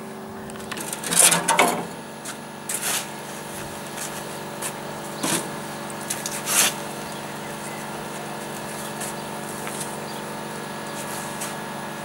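A spade digging soft sand from a bulk bag, heard as a few short scrapes and knocks, over a steady mechanical hum.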